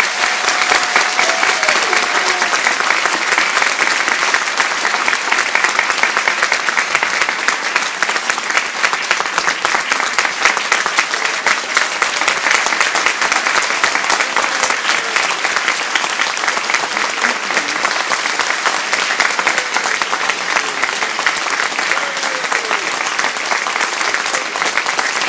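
Audience applauding: dense, steady clapping that holds throughout, with a few voices calling out over it.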